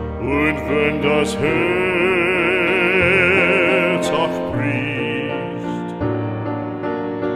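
Background music: a slow classical-style melody held with wide vibrato over sustained accompaniment.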